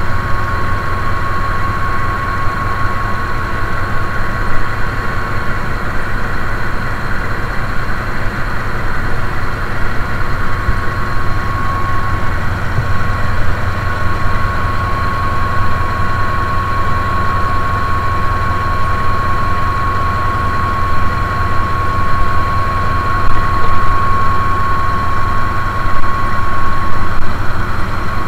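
GE CM20EMP (CC 206) diesel-electric locomotive's diesel engine running steadily, heard up close beside the engine compartment, a low rumble with a steady high whine over it.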